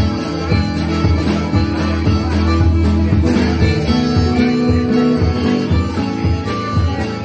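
Live blues band playing: a strummed acoustic guitar over a drum kit.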